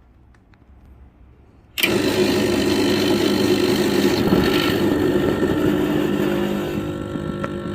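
Espresso machine pump switching on suddenly about two seconds in and running with a steady loud hum as it pushes water through the puck, easing slightly near the end.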